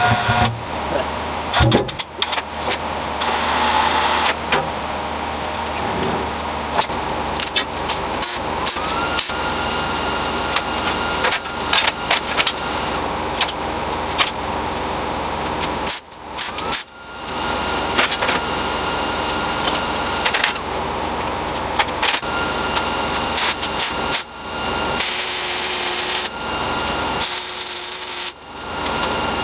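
Workshop noise: many sharp knocks and rattles over a steady mechanical hum, which drops away briefly a few times.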